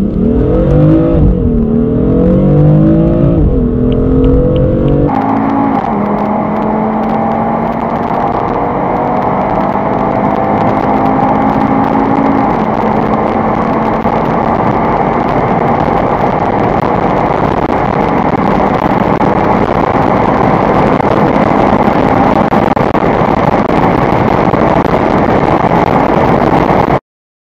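A car accelerating hard under full throttle, heard from inside. For the first five seconds the 2014 BMW M4's twin-turbo straight-six climbs in revs and drops back with each upshift. Then the sound switches abruptly to the 2014 Audi RS3 Sportback's turbocharged five-cylinder pulling at high speed, its engine note rising slowly under heavy wind and road noise. The sound cuts off suddenly near the end.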